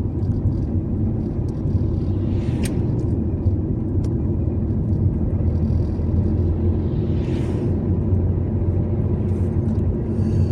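Steady low rumble of a car driving along a road, with two brief hissing swells, one about a third of the way in and one about two thirds in.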